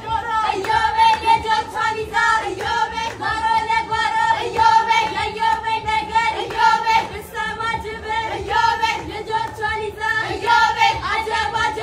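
Group of girls and young women singing a traditional Ashenda song together in high voices, over a steady beat.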